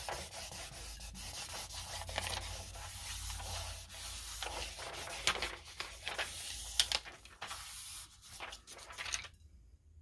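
A hand rubbing back and forth over a sheet of transfer backing paper laid on a glass jar: a steady papery rubbing with a few crinkles, pressing a rub-on transfer down onto the glass. It stops suddenly near the end.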